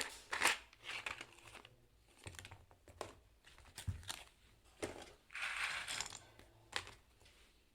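Plastic keycap packaging crinkling as it is handled, with scattered light clicks and a longer rustle about five and a half seconds in.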